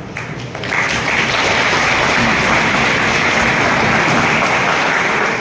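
An audience of students applauding together. The clapping swells up within the first second and then holds steady and dense.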